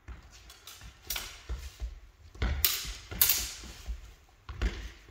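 Spadroon blades clashing and scraping during sparring, with footwork on a sports-hall floor. Sharp clashes come about a second in, twice in quick succession around the middle, and again near the end, with lighter knocks and thumps between.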